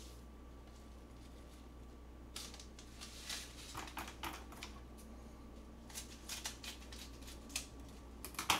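Scissors and plastic meal-kit packets handled on a kitchen counter: scattered short clicks and rustles after a quiet start, with the sharpest click near the end, over a low steady hum.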